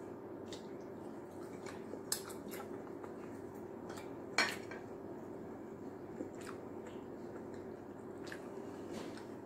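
A knife clinking and scraping against a ceramic bowl while food is cut, a few sharp clinks with the loudest about four and a half seconds in, over a steady low hum.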